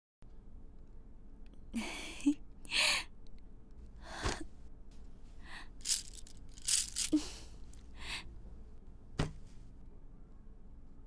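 Cloth curtains being pushed open by hand along their rod: a series of short rustling, swishing noises, with a single sharp knock about nine seconds in.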